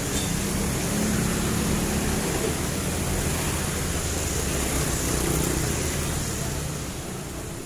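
Motorbike engine running while riding, a steady low hum with wind rushing over the microphone, easing off slightly near the end.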